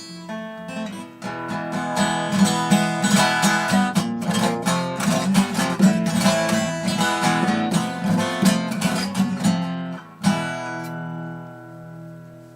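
Epiphone FT130 acoustic guitar being played, picked and strummed in quick, busy notes. About ten seconds in, a last chord is struck and left ringing, fading out.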